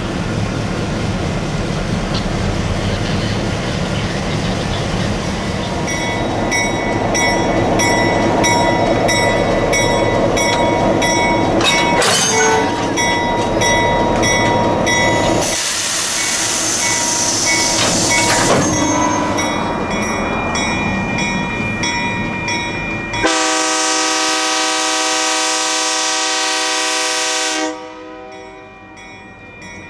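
Diesel locomotive running on the track with a bell ringing about twice a second. Midway a loud air hiss lasts about three seconds, and later the horn sounds one long blast of about four seconds that cuts off suddenly.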